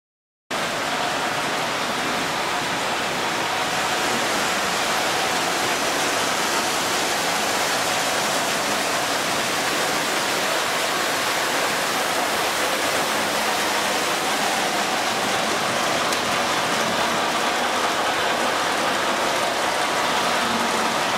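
O gauge three-rail model trains running on metal track: a steady rushing, rain-like noise of wheels rolling on the rails, starting suddenly about half a second in.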